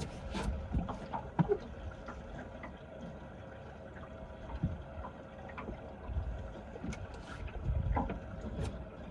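Small fishing boat at rest on the water: a steady faint hum, scattered small knocks and clicks, and low gusts of wind on the microphone.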